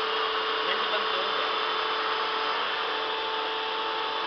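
Hydrogallic copy turning lathe running under power: a steady machine hum with a constant whine, unchanging throughout.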